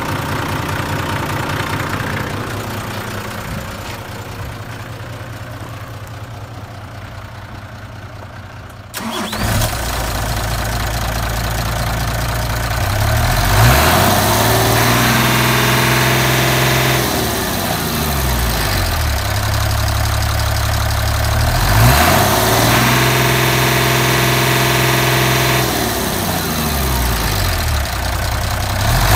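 Mitsubishi Fuso Fighter's 6D17 six-cylinder diesel engine running. It idles at first, then gets suddenly louder about a third of the way in. After that it is revved up and held at higher speed twice, dropping back to idle each time.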